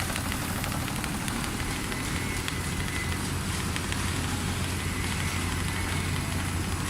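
Richpeace large-area rotating-head CNC sewing machine running, a steady low machine hum with fast, fine ticking over it.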